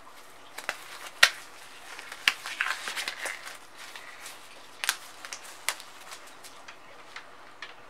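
Handling noises: a few sharp snaps and clicks, the loudest about a second in, and a short rustle about two and a half seconds in, as a disposable glove is pulled on and things are handled at the worktable.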